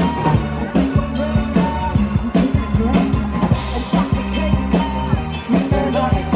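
Live band playing: a woman singing into a microphone over a drum kit, electric guitar and keyboard, with a steady drum beat.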